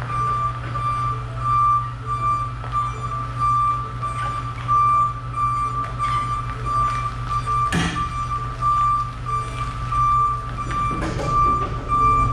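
Heavy vehicle's backup alarm beeping steadily, about two beeps a second, over the low hum of its engine running, with a short knock about eight seconds in.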